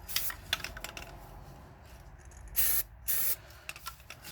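Aerosol spray paint can hissing in two short bursts, about two and a half and three seconds in, with light clicks and taps before them.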